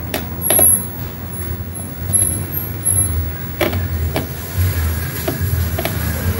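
Screwdriver clicking and scraping against the plastic housing of a JBL portable speaker as screws are backed out, a few sharp clicks scattered through. Under it runs a steady low engine rumble.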